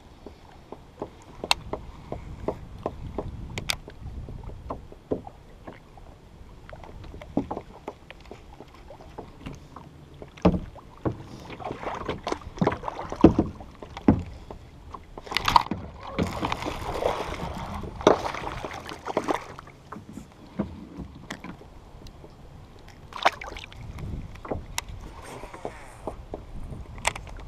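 Small kayak on a lake: water lapping and slapping against the plastic hull, with many scattered clicks and knocks from handling the boat and a baitcasting rod and reel. There is a louder stretch of noise around the middle.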